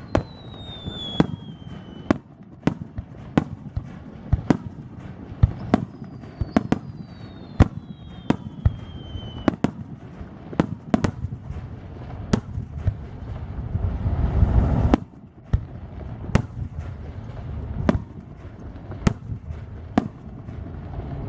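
Aerial fireworks display: a steady series of sharp shell-burst bangs, about one a second, with two falling whistles in the first half. About fourteen seconds in, a low rumble swells and then cuts off suddenly.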